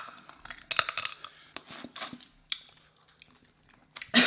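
Close-up eating sounds from a seafood boil: crab shells cracking and crackling with chewing, in scattered sharp bursts during the first half, then a short lull. Near the end comes a loud cough.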